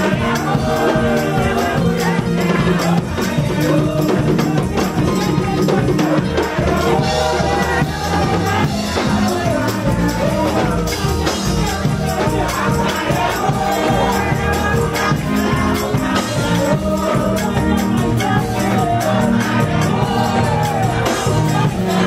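Live gospel praise music: a group of women singing together into microphones over drums and a shaken jingling percussion that keeps a steady, fast beat.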